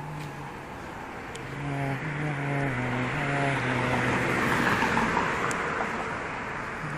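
A car passing on a city street: its tyre and engine noise swells to a peak about two-thirds through, then eases off. Underneath it runs a low tune of held notes that step up and down.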